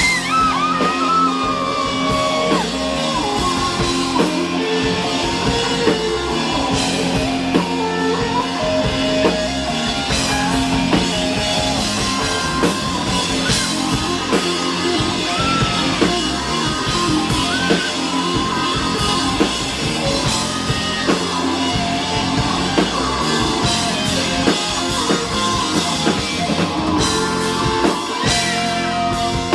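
Live rock band playing: electric guitar, drum kit and a sung vocal line, loud and continuous.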